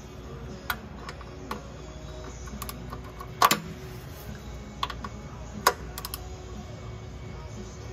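Scattered sharp clicks and light knocks of handling, about seven at uneven intervals, the loudest two about three and a half and five and a half seconds in.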